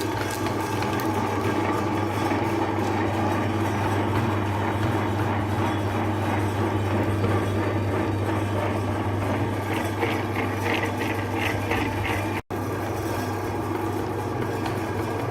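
Electric meat grinder running steadily with a low motor hum as it grinds ice cream bars, with a quick run of rattling ticks about ten seconds in. The sound cuts out for an instant a little after twelve seconds.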